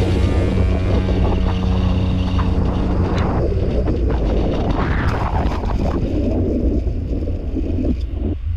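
Wind rushing over the microphone at speed, over the rumble of longboard wheels rolling on asphalt during a fast downhill run.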